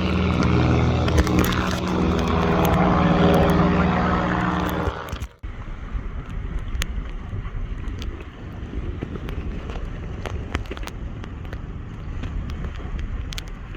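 Steady drone of a tow boat's engine for about five seconds, cutting off abruptly, then wind buffeting the microphone with scattered light knocks and rustles.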